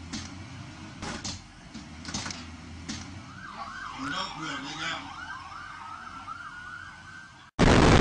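Emergency-vehicle siren at a crash scene: it starts a few seconds in with a fast rising-and-falling yelp, about two and a half cycles a second, then holds one steady high tone. Near the end it cuts to loud wind rushing over the microphone of a moving car.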